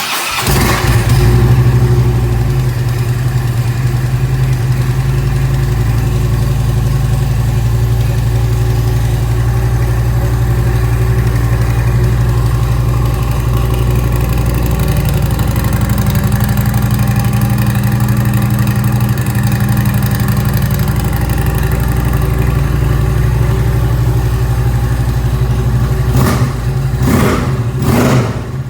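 Harley-Davidson Ultra Limited's 103-cubic-inch V-twin cold-started through Cobra Power Port dual exhaust with slip-on mufflers. It catches at once and idles steadily. Near the end the throttle is blipped a few times in quick succession.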